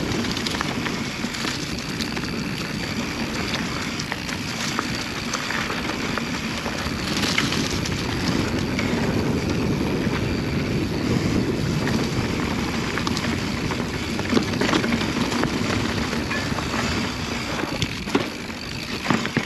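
Mountain bike riding fast down a dirt singletrack: steady wind rush on the microphone and tyre noise on dirt, with scattered clicks and rattles from the bike over bumps.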